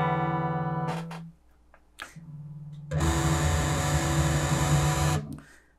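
Electric guitar through a Zoom G1X Four multi-effects processor, heard through PreSonus Eris E4.5 monitor speakers. A clean chord rings and dies away about a second in. After a short pause and a soft note, a distorted chord is held for about two seconds and cuts off near the end.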